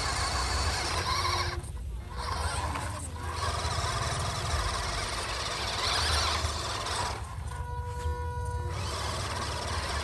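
Small electric motors and gearboxes of RC crawler trucks whining under load as they climb through sand, with a few short pauses.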